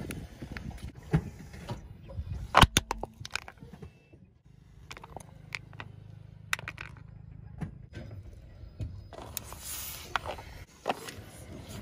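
Car tyre rolling slowly over small objects on asphalt, crushing them with sharp cracks and snaps, loudest in a quick cluster about two and a half seconds in. A low steady hum runs through the middle, and a burst of crackling comes near the end.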